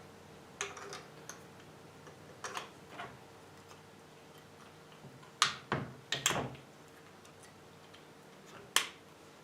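Small plastic clicks and knocks from handling a digital torque wrench's battery compartment and cover while batteries are fitted. A few scattered light clicks, a sharper cluster of clicks around the middle, and one more near the end.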